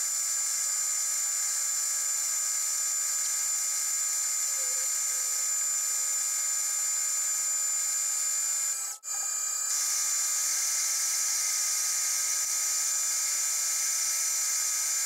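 Grizzly G0602 metal lathe running under a dry turning cut on a steel bar: a steady high whine over a constant hiss of cutting. It drops out briefly about nine seconds in.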